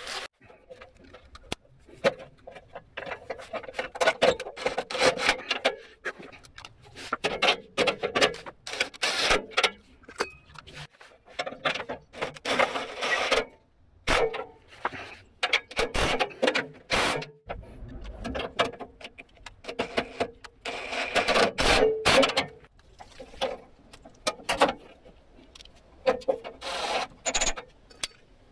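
Cordless drill/driver running in repeated short bursts of a second or two, driving the bolts and screws back into a pickup truck's skid plate, mixed with clinks and rattles of metal parts.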